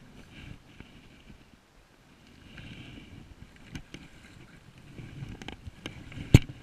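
Uneven rumbling and sloshing of river water, with scattered small clicks. A single sharp knock near the end is the loudest sound.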